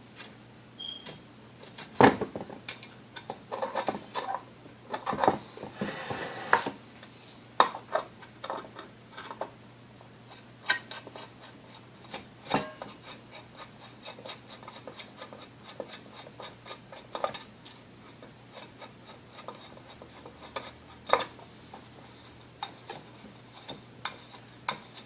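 Tools and small metal parts clinking, tapping and scraping against the metal base of a Hamilton Beach Model D mixer as it is taken apart. There is one loud knock about two seconds in and a stretch of scraping a few seconds later, then runs of light ticks and clicks.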